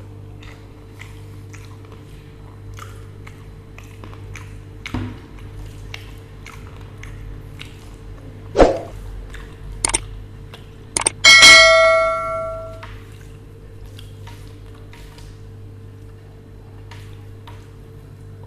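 Quiet eating sounds: faint clicks from mouth and hands over a steady low hum. About eight and a half seconds in there is a knock, then a few clinks. Around eleven seconds a metal dish is struck and rings like a bell for about a second and a half; this is the loudest sound.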